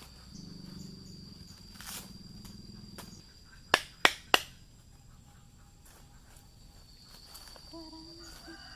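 Steady high-pitched insect drone with three sharp knocks in quick succession about four seconds in.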